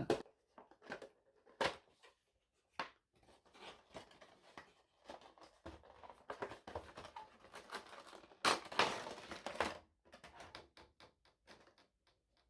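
A cardboard Funko Pop box and its plastic packaging handled and opened by hand: scattered rustles and clicks, with a louder rustle lasting about a second and a half some eight seconds in.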